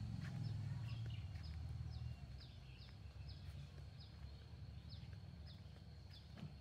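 A bird repeating a short, high, falling chirp about twice a second over a steady high insect whine. A low rumble is loudest for the first two seconds, then fades.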